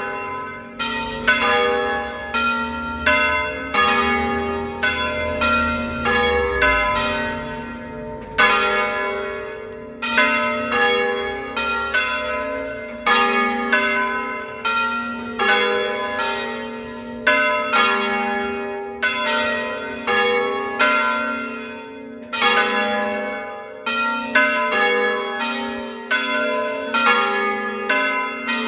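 Three church bells cast by Cavadini of Verona, swung full circle on the Veronese system in festive 'a distesa' ringing that calls to Sunday Mass. The strikes come at about one to two a second in an uneven, overlapping pattern, each ringing on under the next.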